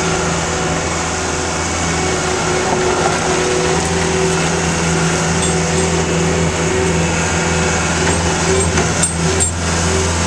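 Cat skid steer's diesel engine running steadily at high working revs, with two sharp knocks near the end.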